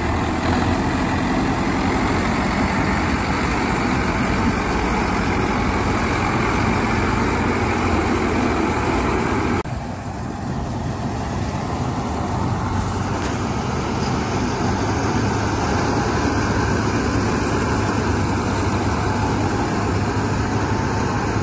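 Mahindra Arjun Novo 605 DI-I tractor-mounted harvester at work in paddy: its 57 hp diesel engine running steadily under load together with the cutting and threshing machinery. The sound drops suddenly in level about ten seconds in, then carries on.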